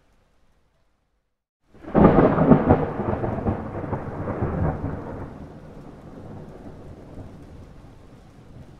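A thunderclap: after a near-silent start, a sudden loud crack about two seconds in breaks into a crackling, rolling rumble that fades over the next few seconds to a low, steady rumble.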